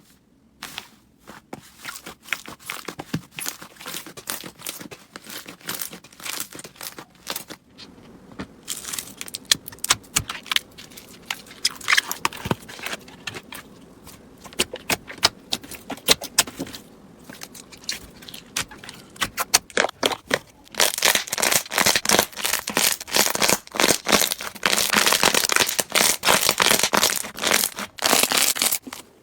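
Slime being squeezed and poked by hand, giving many small crackling clicks and pops, denser and louder near the end.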